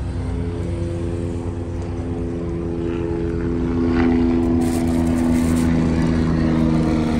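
An engine droning steadily with an even pitched hum, growing louder about four seconds in.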